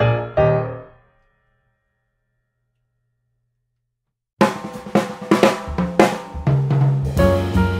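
Background music: a piano phrase dies away about a second in, then about three seconds of silence, and a new track with a drum kit starts abruptly.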